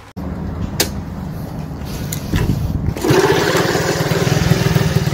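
Motorcycle engine running with a fast, even low pulsing, getting louder about three seconds in.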